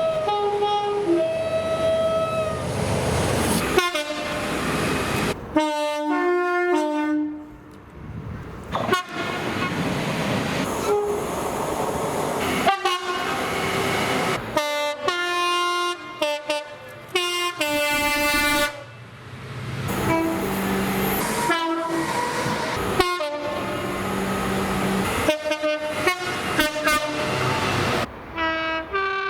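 Train horns sounding in a quick succession of separate clips, each a chord of several held notes lasting one to a few seconds, cut abruptly one to the next, over the running noise of the trains.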